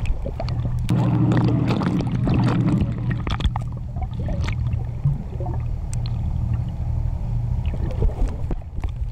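Underwater sound: a steady low drone of boat engines carried through the water, with scattered sharp clicks and crackles. The sound is a little louder from about one to three seconds in.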